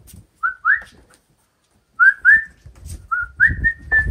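A person whistling short rising double calls, over and over, to call young Airedale terrier puppies out of their crate, with some low knocking and rustling of movement near the end.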